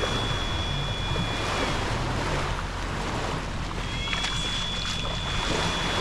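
Small waves washing onto a sandy beach, swelling twice, with wind buffeting the microphone.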